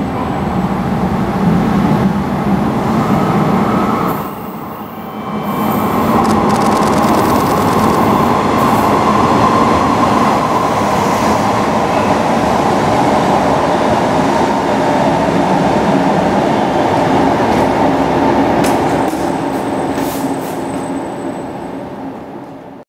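A 485 series three-car electric train running through a station, the steady noise of its wheels on the rails loud and close, dipping briefly about four seconds in and fading away over the last few seconds as it passes.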